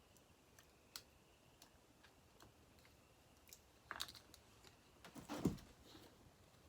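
Faint scattered clicks and light taps of small parts and hands at work on a chainsaw crankcase, as a new crank seal is worked onto the crankshaft over a plastic sleeve; a short, louder knock comes about five and a half seconds in.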